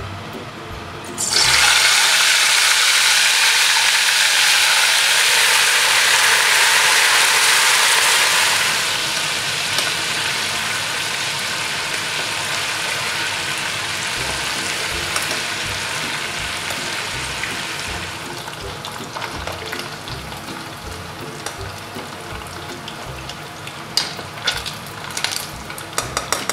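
Chicken pieces going into hot oil in a stainless steel saucepan: a sudden loud sizzle about a second in, easing after several seconds into a steadier hiss of deep frying that quietens further later on. A few sharp clinks near the end.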